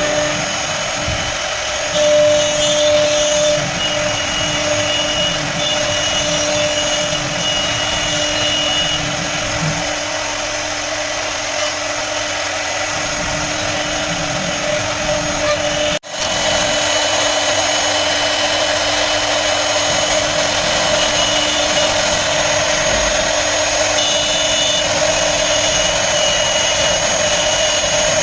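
CNC router spindle running steadily with a high whine as it cuts a jali lattice design in wood. The sound drops out suddenly for a moment about halfway through, then carries on.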